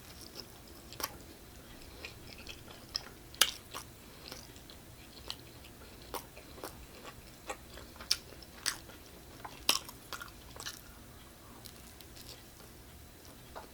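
A person chewing and biting pizza close to the microphone: irregular wet mouth clicks and smacks, a few of them louder.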